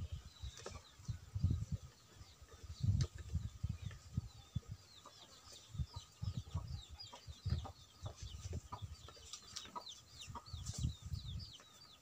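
Birds chirping in many quick, short falling notes, thickening in the second half, over repeated low rumbles.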